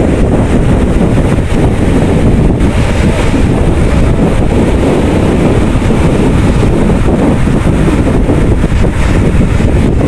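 Sea waves breaking on a rocky shore, with strong wind buffeting the microphone into a loud, steady low rumble.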